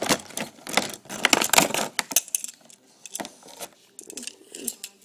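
Handling noise from hands close to the microphone: a dense run of clicks, taps and rustles for about two seconds, then sparser taps.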